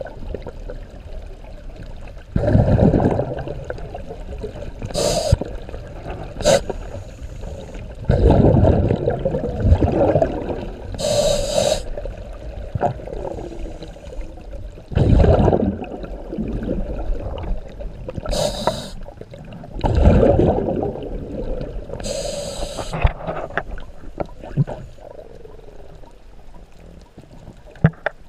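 Scuba diver breathing through a regulator underwater: short hissing inhales alternating with longer low bubbling exhales, about one breath every five to six seconds.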